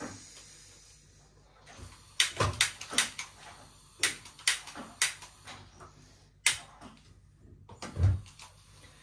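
Handheld piezo gas lighter clicking again and again at a gas stove burner, about ten sharp clicks at uneven intervals starting about two seconds in: the burner is slow to catch.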